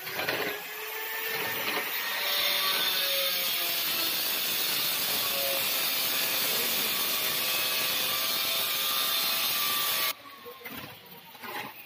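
Shovel scraping through wet cement-and-sand mortar on a concrete floor as it is mixed, a steady scraping noise that cuts off suddenly near the end.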